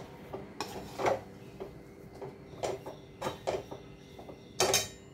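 Metal perforated spoon scraping and pressing thick suji halwa around an aluminium kadhai, in irregular strokes about a second apart, the loudest near the end.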